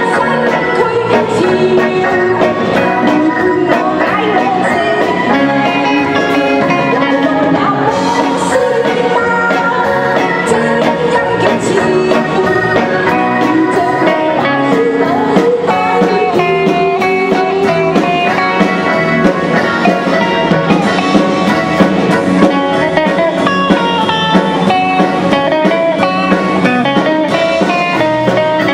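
Live band music with a singer and guitar, playing steadily throughout.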